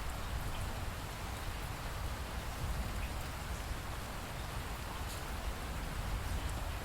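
Steady rain falling, an even hiss with a low rumble underneath and scattered faint drop ticks.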